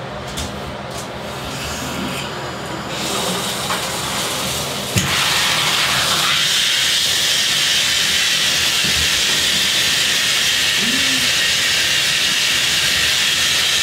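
Water from a handheld shower head running into a bathtub. A soft rush of water begins about three seconds in, and from about five seconds in it becomes a loud, steady hiss of spray on a dog's wet coat.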